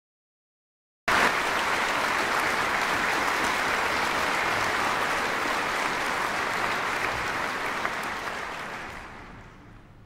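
Concert audience applauding. It cuts in abruptly about a second in, holds steady, then dies away near the end.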